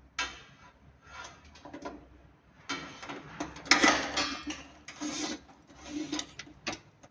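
Handling noise as DC cables are fitted into a solar PV combiner box: a string of irregular scrapes and rubs with light clicks, the loudest about four seconds in.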